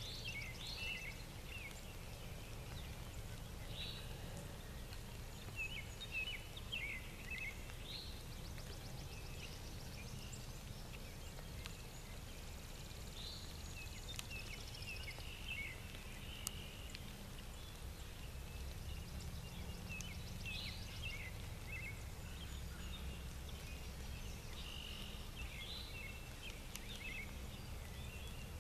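Songbirds singing short, chirpy phrases every couple of seconds over a steady low rumble of outdoor background noise.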